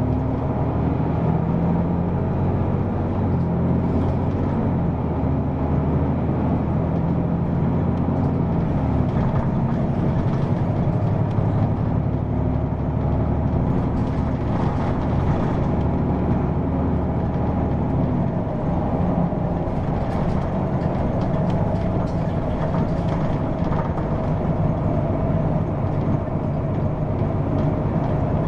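Hino PDG-KV234N2 city bus running on the road: a steady engine drone over road noise, the engine note changing about 9 seconds in and again around 18 seconds.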